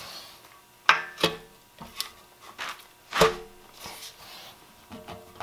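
Hammer tapping an axle seal into a Ford 9-inch axle housing tube: a few irregular, sharp knocks with a short metallic ring, the loudest about three seconds in.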